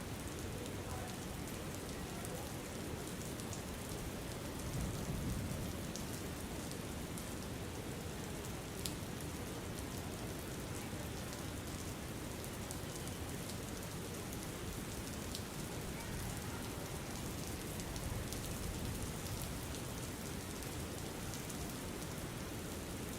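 Steady rain ambience: an even hiss of rain with scattered fine drop ticks, its low end briefly swelling louder about five seconds in and again near eighteen seconds.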